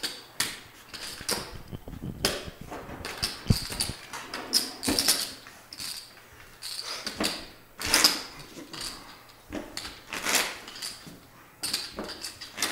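Clay poker chips clicking together as players handle and stack them at the table: irregular sharp clicks, some coming in quick clusters.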